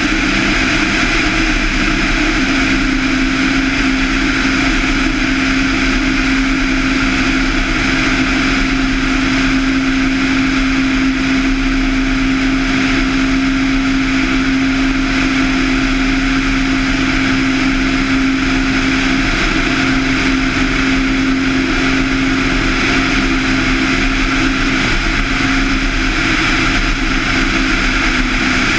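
Van's RV-7's 200 hp Lycoming IO-360 four-cylinder engine and two-blade propeller running at steady power as the plane lifts off and climbs: a loud, unchanging drone.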